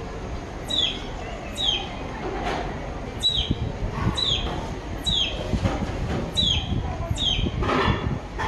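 A bird calling over and over: short, high, downward-sweeping notes, about one a second.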